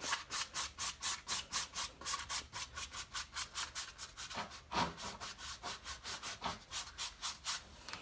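A small paint applicator scrubbing back and forth across a stretched canvas in quick, even strokes, about five a second, stopping near the end.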